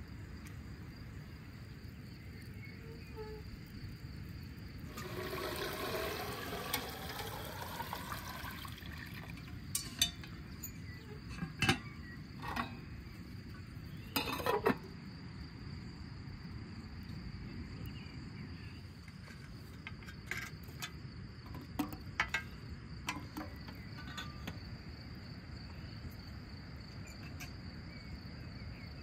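Steady insect chirring, a thin high tone, over quiet outdoor background. About five seconds in comes a few seconds of louder wavering sound, then a scattering of sharp metal clinks, some as the lid of a wood-fired samovar is lifted.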